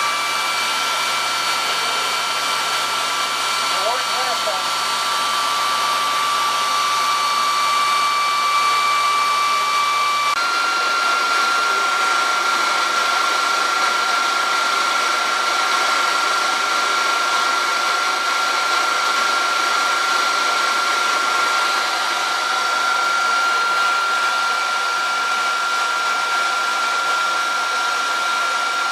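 Steady whir of fans and rushing air from a powered-up MH-60 Jayhawk helicopter, with several high, steady whining tones over it. The tones shift pitch about ten seconds in.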